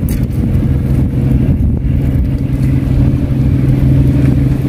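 A fishing boat's engine running with a steady low drone.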